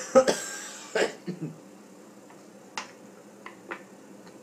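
A man coughing and sputtering with a mouthful of dry cinnamon powder: a sharp cough at the start followed by a breathy blowing-out, another cough about a second in, then a few fainter clicks.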